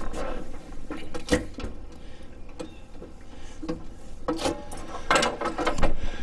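Hand work on fuel line fittings: irregular clicks, knocks and scrapes, with a few sharper knocks about a second in and again past the four-second mark.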